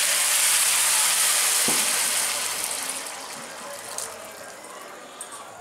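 Water poured from a cup into a hot kadai of fried rice and lentils, hitting the pan with a loud gushing sizzle that dies down after about three seconds. A brief knock about four seconds in.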